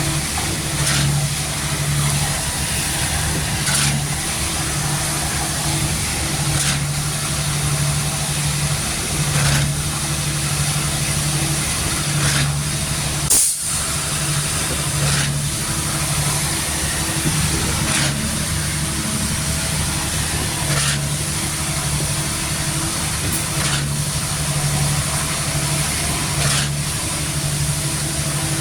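Truck-mounted concrete pump's diesel engine running steadily under load, with a short sharp hiss-clunk about every three seconds as the pump strokes. There is one louder click and a brief break about halfway.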